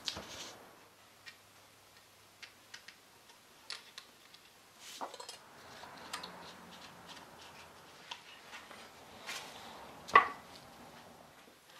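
Scattered light clicks and taps of wood and a metal knife blade as a loose mitred corner joint of an old wooden frame is worked apart, with one sharper knock about ten seconds in as the frame is flexed.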